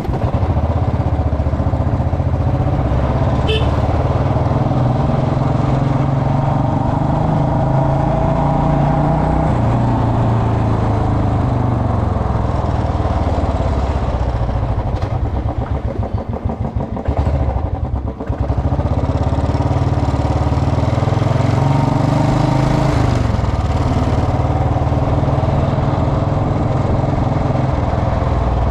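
Royal Enfield Bullet Electra's single-cylinder engine running under way, its pitch falling and rising with speed. It drops briefly off the throttle about two thirds of the way through and then climbs again.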